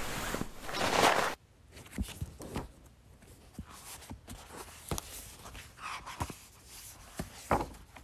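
A person moving about and settling into a seat: a loud rustle for about the first second, then scattered soft footsteps, knocks and clicks.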